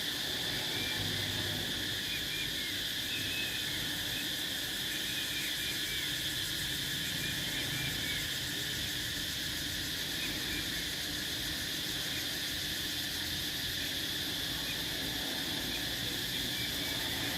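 Cicadas droning in a steady, high, unbroken chorus, with brief faint chirps over it now and then.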